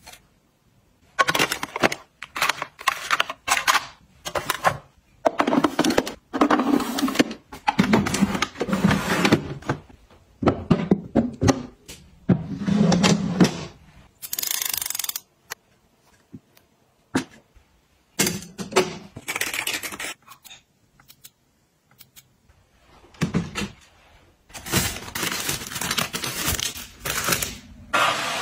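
Clicks, taps, knocks and rustling from small objects being handled and set down, in short separate bursts with brief pauses, starting with a retro-style label maker being worked as its printed tape feeds out.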